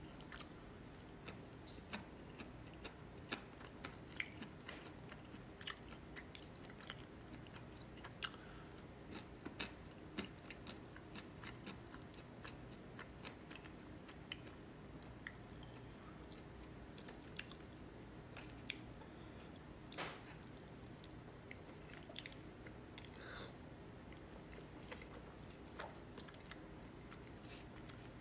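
Faint close-up eating sounds: scattered chewing and small mouth and chopstick clicks while noodles are eaten from a plastic bowl, over a faint steady low hum.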